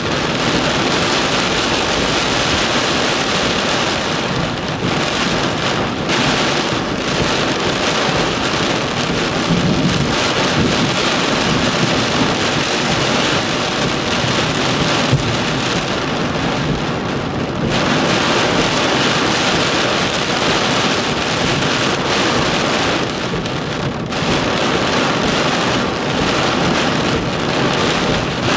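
Heavy thunderstorm downpour on a car's windshield, heard from inside the car: a loud, steady hiss that dips briefly a few times.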